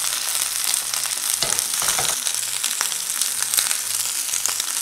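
Starch-dusted shrimp shallow-frying in a little hot oil in a pan: a steady sizzle with scattered small crackles, as they are left to turn golden.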